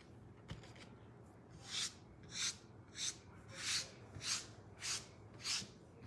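A hand brushing back and forth across a cloth mat: a run of even swishes, about one every 0.6 seconds, starting about two seconds in.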